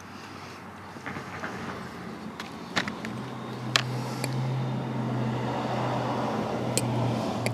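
A motor vehicle's engine running as a steady low hum that sets in about three seconds in and grows a little louder, with a few sharp clicks over it.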